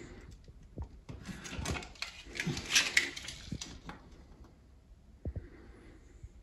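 Quiet handling of a ceramic wall tile and a pen: scratchy rubbing and light knocks as the tile is marked and offered up to a wall socket, with a couple of sharper taps about five seconds in.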